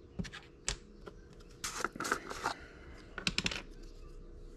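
A small plastic colorant jar and plastic measuring spoon being handled: scattered light clicks and taps, with a denser scraping rustle in the middle as the jar is opened, and a few more clicks near the end.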